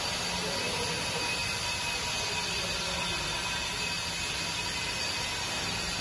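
HBTS30 small concrete/mortar pump running: an even, steady machine noise with faint steady tones and no separate strokes.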